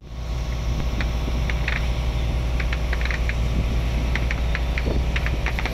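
A fishing boat's engine running with a steady low hum, with light irregular clicks and rattles over it.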